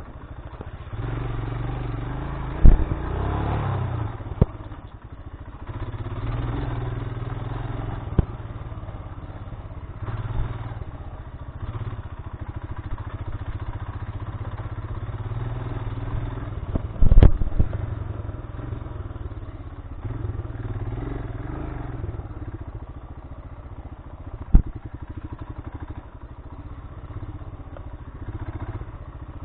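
Royal Enfield Himalayan's single-cylinder engine running at low speed off-road. Several sharp knocks and clatters come from the bike jolting over the rocky, rutted track, the loudest about three seconds in and again about seventeen seconds in.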